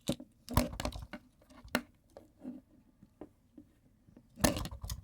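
Handling noise in a small room: a few scattered knocks and clicks of objects being moved, the loudest about four and a half seconds in.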